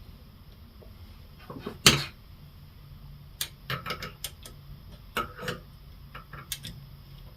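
Small hard clicks and taps of a screwdriver and faucet parts against a Delta faucet body as a new seat and spring are guided into place. One sharp click comes about two seconds in, followed by scattered groups of lighter clicks.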